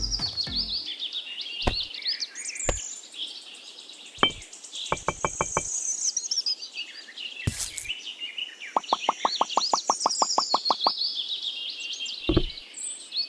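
Birds chirping and trilling, with a few sharp knocks and two runs of quick clicking, the longer one at about nine clicks a second.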